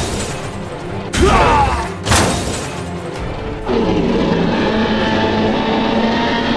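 Background music with two sudden booming hits about a second apart, followed by a steadier, fuller passage of the soundtrack.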